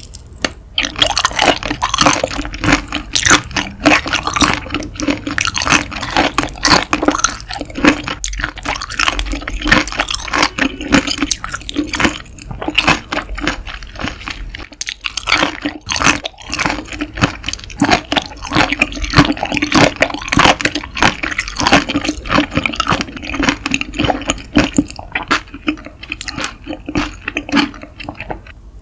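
Close-miked wet chewing and squelching of raw seafood: many quick sticky clicks and smacks, with a steady low hum underneath.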